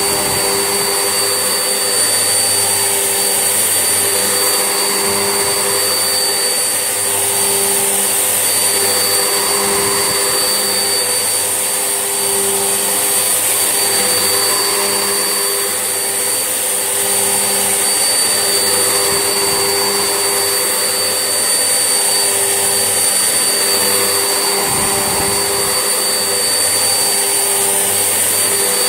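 Vax Essentials vacuum cleaner running continuously with a steady high-pitched whine and motor hum. The sound swells gently every couple of seconds as it is worked across the floor.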